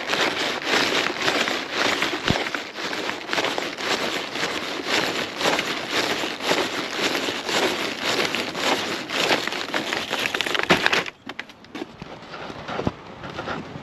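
Plastic shrink-wrap on cases of bottled water crinkling and crackling close to the microphone as the cases are carried. It stops suddenly about eleven seconds in, when the cases are set down, leaving a few faint clicks.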